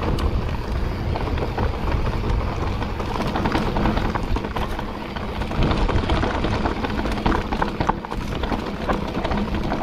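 Mountain bike riding over a rough, rocky trail: a dense, irregular clatter of tyres on stones and the bike rattling, over a low rumble.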